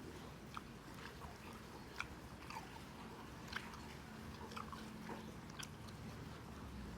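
Chewing and biting into crispy pata, deep-fried pork leg, with the crisp skin crackling in sharp, irregular crunches every half second or so.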